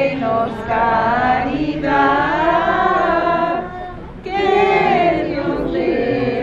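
A group of voices singing a traditional Spanish posada song together, the verses in which the pilgrims ask for refuge, holding long sung notes with a short break between phrases about four seconds in.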